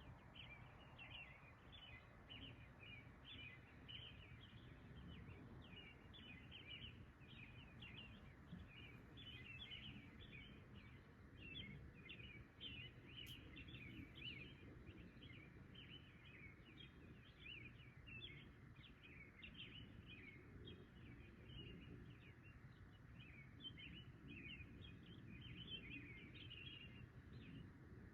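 Faint outdoor night chorus of many small, high chirps overlapping without pause, over a steady low rumble.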